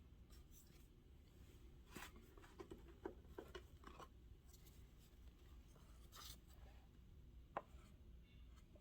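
Near silence with faint, scattered rustles and light taps of old paper photographs being handled and shuffled.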